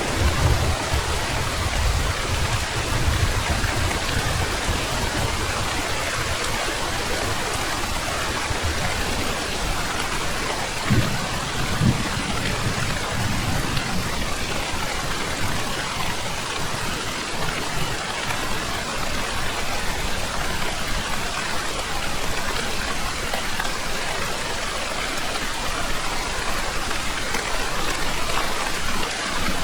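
Heavy rain falling steadily, with low rumbles of thunder in the first few seconds and again about eleven seconds in.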